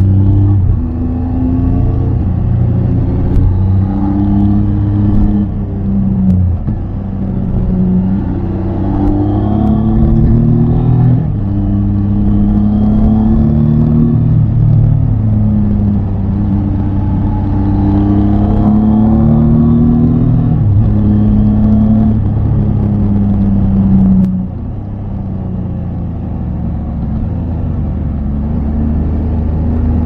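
Triumph Tiger 800 XCA's three-cylinder engine running under way. Its pitch climbs and drops repeatedly as the rider works the throttle through the gears, and it eases off to a lower, quieter note about three-quarters of the way through.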